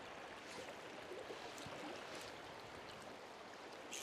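Steady rush of flowing stream water, with a few faint ticks and a short click near the end.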